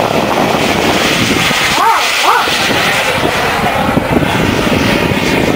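Radio-controlled model airplane's engine running in flight overhead, a steady drone under rough noise, with two short rising-and-falling tones about two seconds in.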